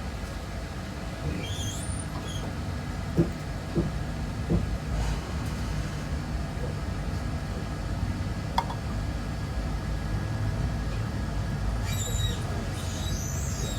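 Inside a moving High Speed Train carriage: the steady low rumble of the train running. There are three knocks about three to four and a half seconds in, a sharp click near the middle, and faint high squeaks near the start and again near the end.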